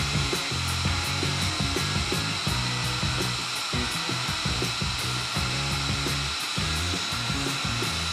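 F-35 fighter's F135 jet engine running on the ground, a steady high whine and hiss, mixed with background music that has a moving bass line and a regular beat.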